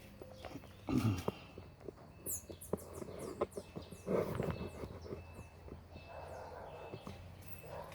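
Irregular clicks and knocks of tools working on a washing machine, with a couple of louder bursts of handling noise, as parts are loosened to free the drum. Birds chirp faintly in the background.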